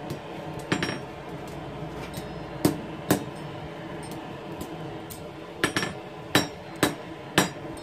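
Hand hammer striking hot steel, an old file being forged into a letter-opener hook, on an anvil: about eight irregularly spaced blows, some in quick pairs, as the hook is bent back more in the final forging heat.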